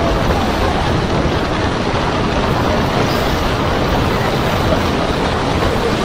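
Storm wind and heavy seas breaking over a ship's bow and spraying the bridge windows: a loud, steady rush of wind and water.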